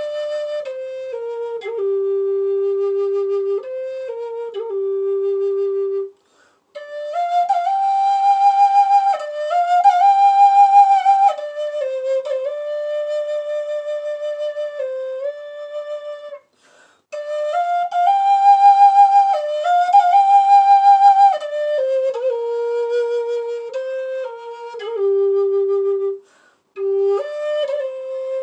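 Native American-style wooden flute playing a slow solo melody of long held notes, with short breath pauses about six, sixteen and twenty-six seconds in. The highest notes, about eight to eleven and eighteen to twenty-one seconds in, are the loudest and carry a vibrato.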